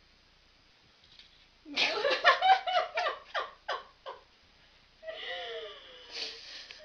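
A person laughing: a run of quick, rhythmic ha-ha bursts starting about two seconds in and tailing off, followed near the end by a shorter voiced sound with a falling pitch.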